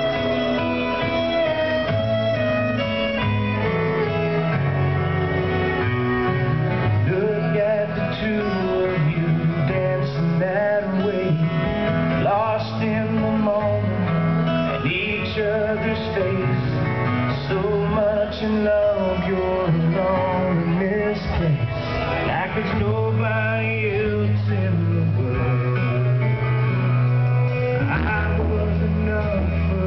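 A slow country song, with guitar and a male voice singing, played over a DJ's sound system.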